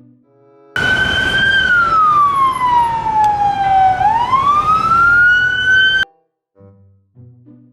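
Police car siren: one slow wail that holds, falls in pitch and rises again, over a noisy rumble. It starts and cuts off abruptly.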